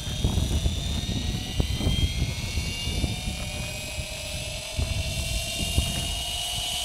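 GAUI Hurricane 550 electric RC helicopter spooling up, its motor and rotor whine rising steadily in pitch. Wind rumbles on the microphone.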